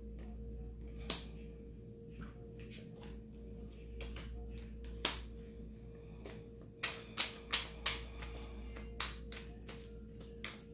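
Tarot cards being handled on a table: scattered sharp clicks and taps, coming quickly, several a second, in the last few seconds, over a faint steady hum.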